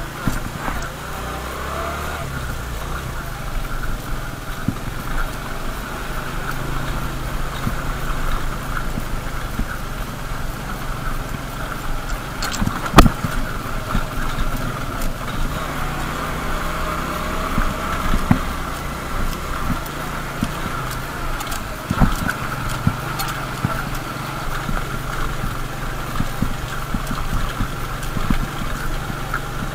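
Motorcycle engine running at low speed over a rough gravel road, with steady engine drone and a rattle of small knocks from the bumps, two sharp knocks standing out about 13 and 22 seconds in.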